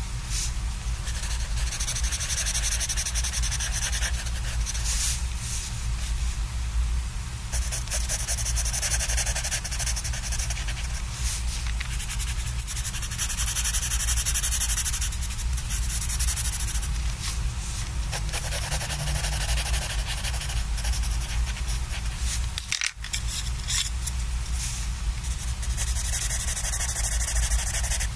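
Colored pencil scratching across sketchbook paper in quick shading strokes, coming in runs of a few seconds with brief pauses between.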